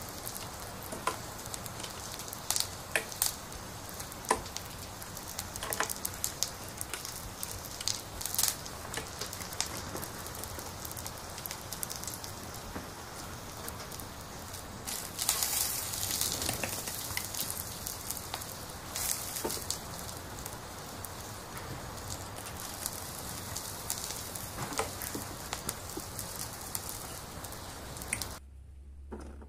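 Toy barbecue grill giving off a steady frying sizzle while its rack mists, with sharp clicks of plastic toy food skewers set on the rack. The sizzle cuts off suddenly near the end.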